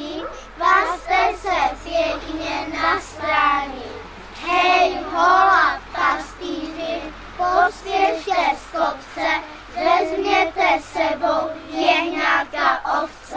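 A group of children singing a Christmas song together in phrases.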